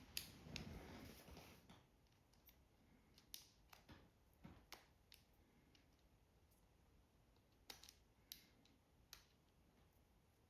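Faint handling noise, then a scattering of sharp clicks, as a factory car-door speaker's plastic clip-in frame is worked loose and unclipped.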